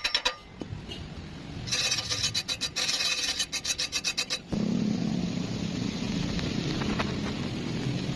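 Fast, rhythmic rasping strokes, like metal being filed or scrubbed, in two bouts with a pause between them, ending about four and a half seconds in. A steady low hum follows.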